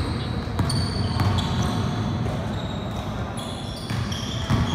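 Basketball game on a wooden court: sneakers squeaking in short high chirps and a basketball bouncing, over the low rumble of a large gym.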